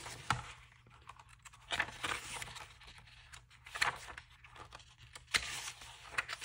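Paper pages of a diary being turned and handled: several short rustles and flips.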